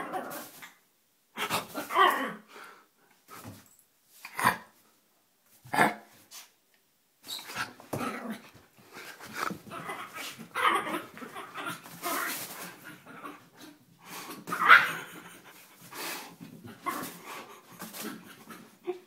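Tiny Yorkshire terrier growling and barking in play, in short separate bursts at first, then almost without pause from about seven seconds in.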